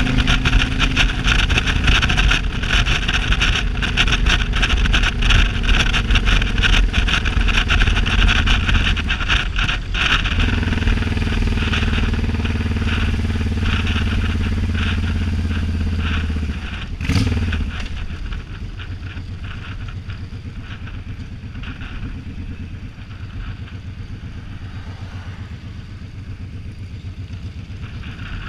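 Motorcycle engine running at road speed, with heavy wind buffeting on the microphone. About two-thirds of the way through, the engine note drops suddenly and the sound gets quieter as the bike slows.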